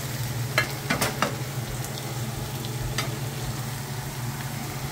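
Carne seca (dried beef) sizzling as it fries in oil in a skillet, with a few sharp clicks of a spatula stirring against the pan about a second in and again near three seconds, over a steady low hum.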